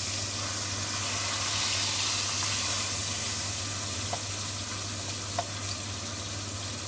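Chuck eye steak sizzling steadily in hot oil in a frying pan, with two small clicks about four and five and a half seconds in.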